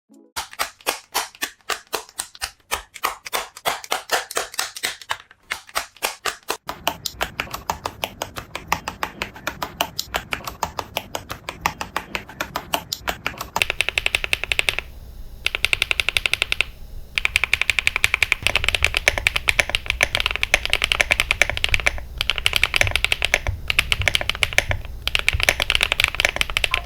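Mechanical keyboard with HMX Cheese linear switches being typed on. Single keystrokes come slowly and evenly at first, then the typing speeds up and turns into fast, steady typing with a couple of short breaks near the end.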